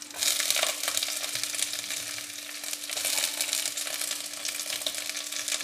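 Sliced onions sizzling in hot oil, the hiss jumping up about a quarter second in as they start to fry, with light clicks of a utensil stirring them. A faint steady hum runs underneath.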